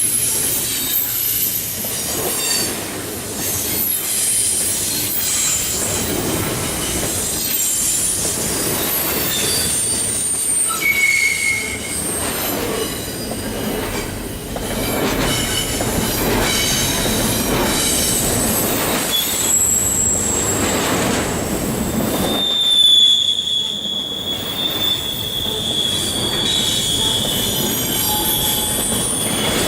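Double-stack intermodal freight cars rolling past, steel wheels rumbling and clattering on the rails with many short high squeals. About three quarters of the way through, a long, steady squeal sets in and holds.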